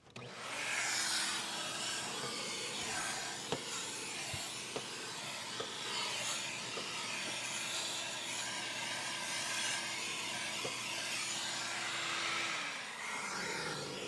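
Shop vac with a brush attachment vacuuming dust from an RV air conditioner's condenser coils. It starts up just after the beginning and runs steadily with a few light clicks. Near the end it is switched off and its motor winds down.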